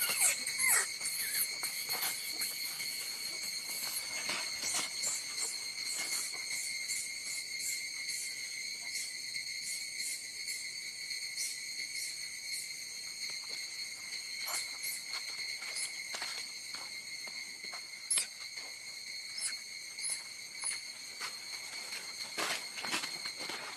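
Steady, high-pitched insect drone on one unchanging pitch, with short clicks and rustles scattered through it and one sharper click about 18 seconds in.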